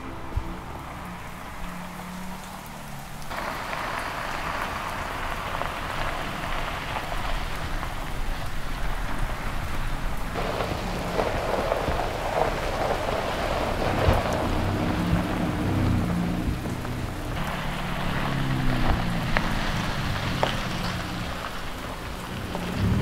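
Steady rain falling, coming in about three seconds in.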